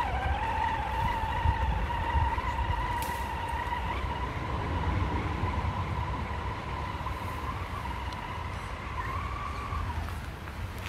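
Electric motor and gear drivetrain of a radio-controlled trail car whining steadily, its pitch wavering slightly with throttle, then stopping near the end. A low rumble runs underneath.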